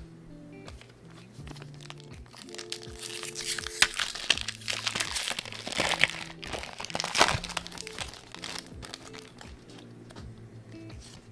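Foil Pokémon booster pack wrapper crinkling and tearing open, densest in the middle, over quiet background music.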